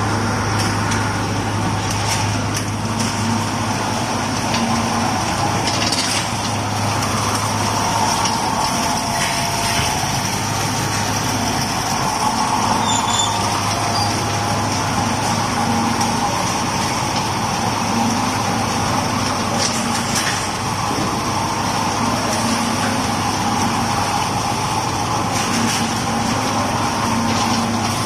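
Steady motor vehicle noise: an engine hum with constant road noise, holding at an even level without a break.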